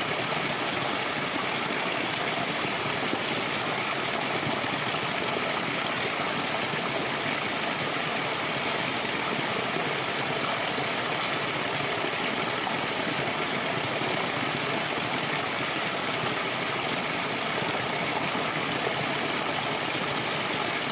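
Flowing water rushing steadily, like a stream, in an even, unbroken hiss with no separate splashes or thunder.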